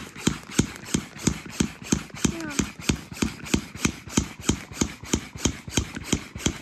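Plastic hand pump on a vacuum storage bag's valve being worked fast, sucking the air out of the bag: a quick, regular stroke about three times a second.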